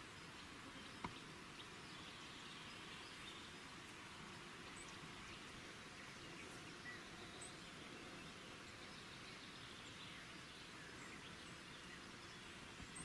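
Near silence: faint outdoor ambience, a steady hiss with a few faint, short high chirps scattered through it. A single sharp click about a second in.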